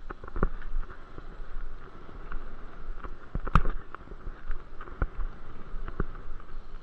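Bicycle riding over an asphalt pump track: steady tyre rolling noise and wind rumble on the microphone, broken by frequent sharp clicks and knocks from the bike rattling over the rollers, the sharpest about three and a half seconds in.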